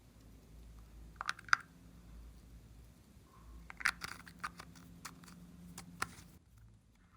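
Glossy slime being pressed and worked by hand, giving short bursts of sharp crackling clicks: a few about a second in, a denser cluster around four seconds, then scattered single clicks.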